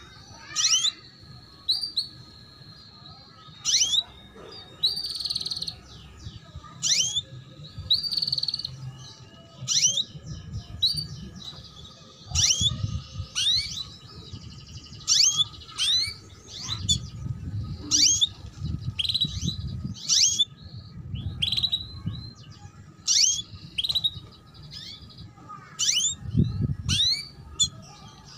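Female domestic canary calling 'cuit cuit', the calls of a hen in breeding condition: short, sharp chirps that fall steeply in pitch, about one a second and sometimes in quick pairs. A low rumble comes and goes behind them.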